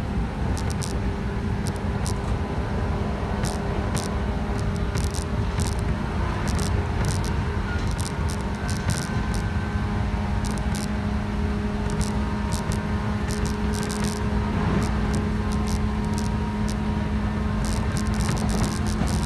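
JR West 117 series electric train running at a steady speed, heard from inside the carriage: a low rumble of wheels on the rails under a steady hum from the traction motors and gears, with irregular sharp clicks and rattles throughout.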